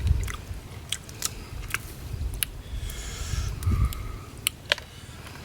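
A man chewing raw crab, with scattered sharp crunching clicks as the shell breaks between his teeth.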